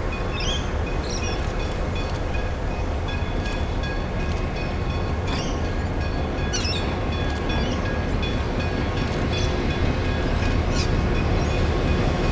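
Heritage diesel locomotive approaching at the head of a passenger train, its engine rumble growing gradually louder.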